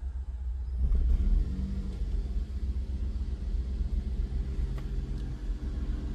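A car engine starts about a second in and idles steadily over a low rumble.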